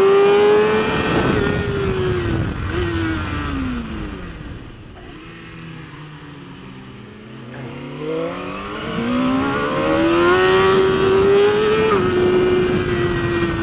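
BMW S1000RR inline-four superbike engine at high revs, heard onboard with wind rush. Its pitch falls as the bike slows for a corner, goes quieter at low revs for a few seconds, then climbs steadily under hard acceleration and steps down at an upshift near the end.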